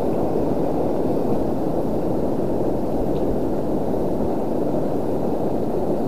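Steady rushing wind noise on the microphone, an even low rumble with no distinct events.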